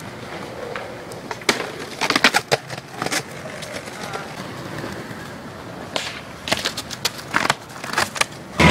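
Skateboard rolling on asphalt, with a series of sharp clacks as the board strikes the pavement and a low brick ledge. The clacks cluster around two seconds in and again over the last few seconds.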